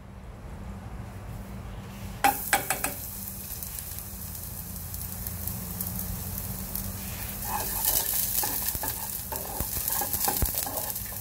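Chopped garlic hits hot oil in a small pot and starts sizzling about two seconds in, with a few knocks as it goes in. The sizzle grows louder, and from about seven seconds in a spatula scrapes and taps the pot as the garlic is stirred and fried.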